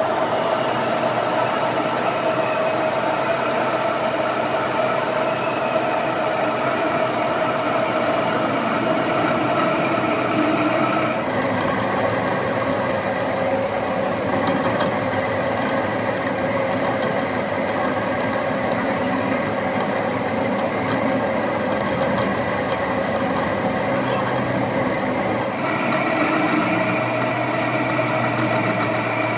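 Workshop machinery running steadily, with a rasping, rubbing noise over it. The sound changes abruptly twice.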